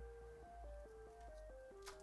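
Quiet background music: a simple melody of single plain notes stepping up and down several times a second. One faint click comes near the end.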